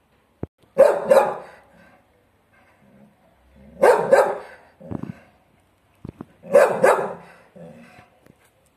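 A dog barking in three quick pairs of barks, each pair a couple of seconds after the last.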